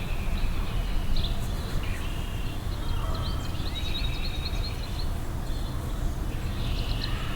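Several small birds chirping and trilling in quick, short calls over a steady low outdoor rumble.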